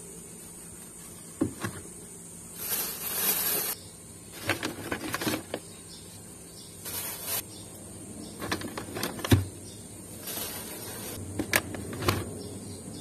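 Paper bag liner rustling and crinkling in bursts, with a few soft knocks as produce (cabbage, green beans, oranges, lemons) is set into a refrigerator crisper drawer; the sharpest knock comes about nine seconds in.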